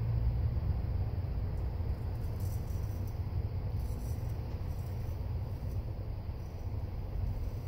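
A steady low rumble, with faint, brief scrapes of a 7/8" straight razor cutting two days of stubble through shaving lather.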